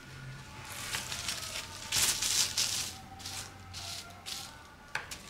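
Clear plastic packaging bag crinkling and rustling in bursts as it is handled, loudest about two seconds in, with a sharp click near the end. A faint held melodic line sounds underneath.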